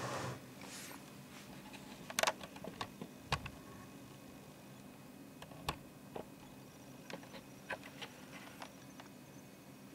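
Faint steady low hum with scattered sharp ticks and clicks at irregular intervals, a cluster of them a couple of seconds in.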